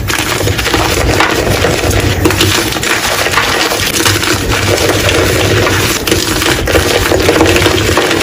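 Blocks of gym chalk being crushed, with a dense run of crunching and crumbling crackles.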